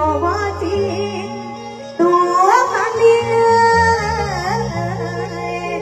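A woman sings an Isan luk thung song into a handheld microphone over a band's backing, with a bass line stepping underneath. Her voice comes in strongly about two seconds in.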